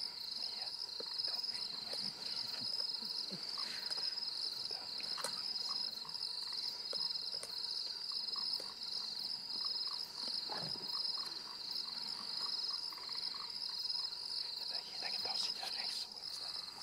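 Steady, pulsing high trill of a night insect chorus, with scattered wet crunches and clicks from a lion chewing and tearing at a wildebeest carcass.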